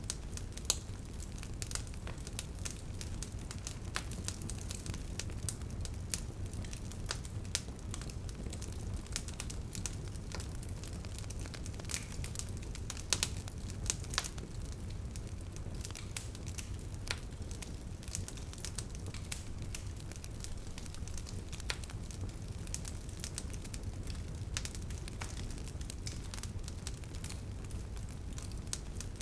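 Fire crackling, with frequent sharp pops over a steady low rumble.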